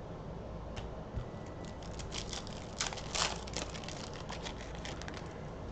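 Glossy Panini Prizm trading cards being handled and slid over one another, a run of light clicks and rustles, busiest about halfway through.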